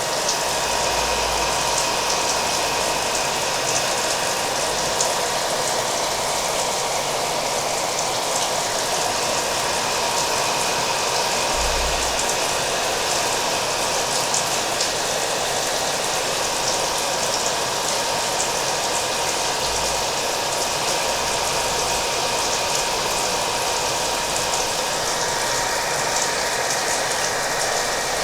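A hair dryer running steadily, with a faint constant whine in its hum, mixed with the patter of falling rain.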